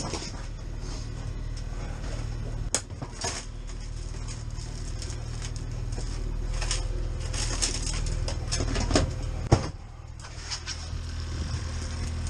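Boat engine running with a steady low hum, overlaid by clatter and sharp knocks on board, the two loudest knocks about three seconds and nine and a half seconds in.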